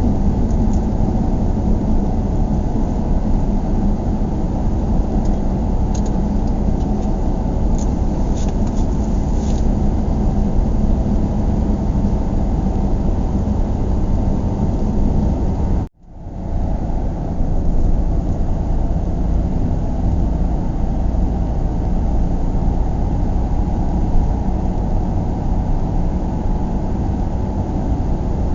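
Steady low rumble of a car being driven, engine and road noise as heard inside the cabin. The sound cuts out abruptly about halfway through, then fades back in within a second.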